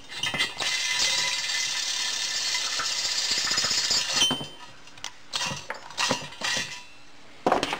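Electric drill running for about three and a half seconds, reaming out a header-flange bolt hole that the coating had left slightly too tight. After it stops come a few scattered metal clicks and knocks.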